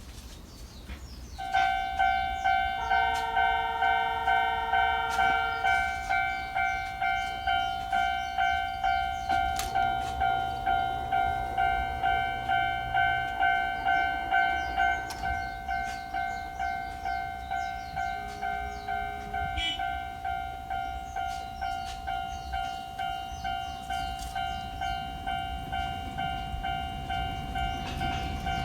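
Japanese level-crossing warning bell ringing: an electronic ding repeating just under twice a second, starting about a second and a half in and going on steadily, a little quieter in the second half. A second, lower tone joins it briefly a few seconds in.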